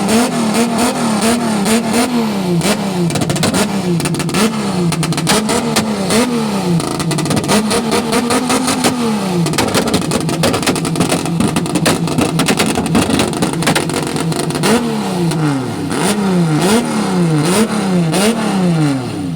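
Ford Falcon's engine being revved over and over, its pitch climbing and dropping with each blip of the throttle and the blips coming quicker near the end, over a constant rattle.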